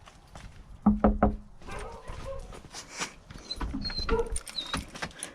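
A dog giving a short, loud whining cry about a second in, then more whimpering, mixed with scattered knocks and clicks.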